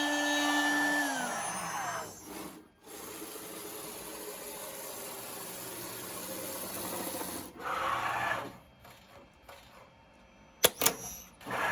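CNC router spindle whine falling in pitch as the spindle spins down, then steady mechanical running noise from the machine. Short bursts of machine noise and two sharp clicks follow near the end.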